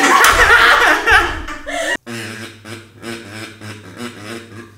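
Two men laughing loudly for about two seconds. Then, after a sudden cut, a kazoo buzzing out a slow hummed melody of a song.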